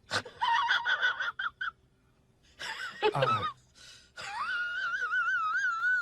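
A pet's high-pitched cries: several short wavering ones, a falling one, then one long warbling cry near the end.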